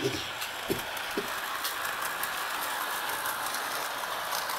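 Model GO Transit train running on its track: the steady whir of the locomotive's small electric motor, with scattered light clicks from the wheels on the rails.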